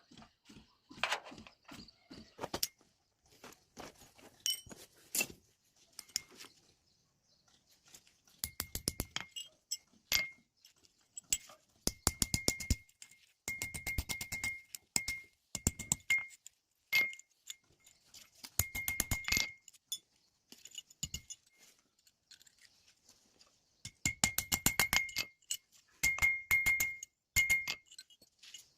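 Metalwork on an iron door: repeated short bursts of rapid metallic clicking and clinking, each about a second long, several with a ringing tone, separated by short pauses.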